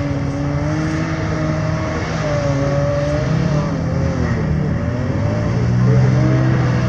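Off-road side-by-side engine running with uneven revs, its pitch wavering up and down; it gets a little louder about six seconds in.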